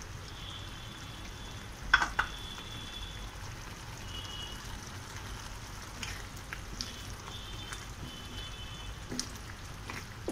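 Thick spinach gravy bubbling and sizzling in a non-stick pan while a spatula stirs paneer cubes into it, with a few knocks of the spatula against the pan, the loudest about two seconds in.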